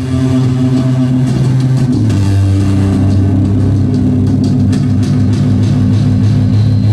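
Loud amplified guitar drone: low notes held steadily through the amp, shifting down in pitch about two seconds in, with a faint high whine coming in near the end.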